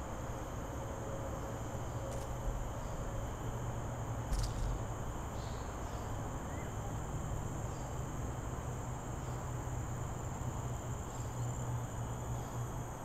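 Steady high-pitched insect chorus in dense vegetation, several shrill tones held at once, over a low rumble, with two short clicks about two and four seconds in.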